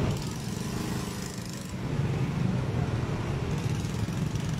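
Road traffic: motor vehicle engines running and passing in a steady low rumble.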